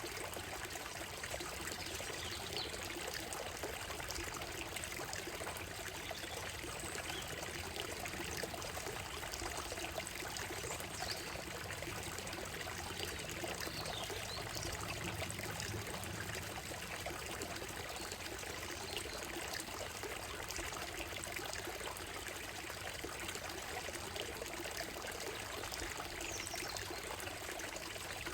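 Shallow stream running over stones and gravel, a steady trickling and babbling. A few faint, high bird chirps come through now and then.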